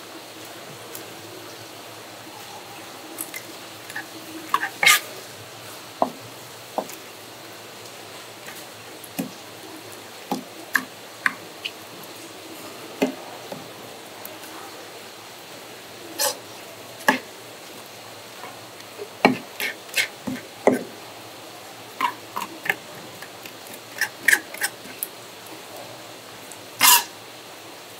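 Knife and utensils knocking and clicking on a cutting board at irregular intervals over a steady hiss, as seafood is cut up for sashimi; one louder knock near the end.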